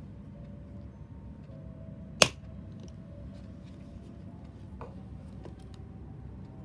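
A single sharp, loud click about two seconds in, then a few faint clicks later on, over a low steady hum: stationery being handled on a desk.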